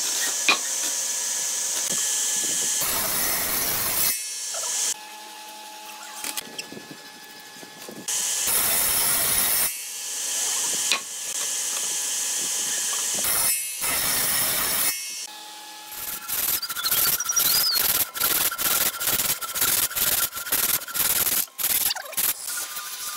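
Woodworking tools working hardwood in a series of short cuts: loud sawing and rubbing noise, some passages with a steady machine hum, then a fast run of repeated rubbing strokes, about three a second, for the last several seconds.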